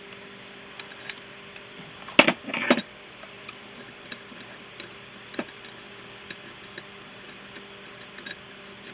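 Small hard objects being handled in a small container: scattered light clicks and ticks, with two louder rattling clatters about two seconds in.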